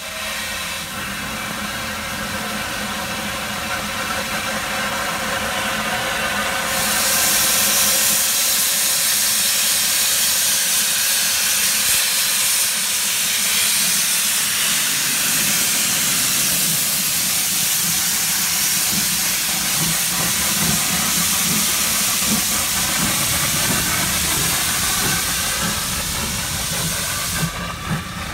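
Steam locomotive No. 52322, a Lancashire & Yorkshire Railway 0-6-0, hissing steam as it starts away; about seven seconds in the hiss grows louder and brighter as steam from the open cylinder drain cocks billows around, then it eases near the end.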